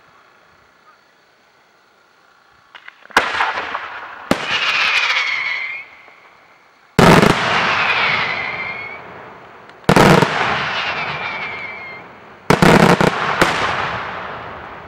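Daytime aerial fireworks shells bursting overhead. After a few quiet seconds come six sharp bangs, each followed by a noisy tail that dies away over a second or two.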